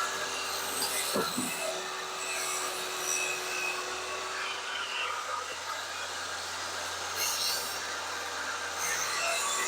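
Table saw running, cutting a groove along the underside of wooden beehive frame top bars: a steady whine over a hiss, with one held tone fading out about halfway through.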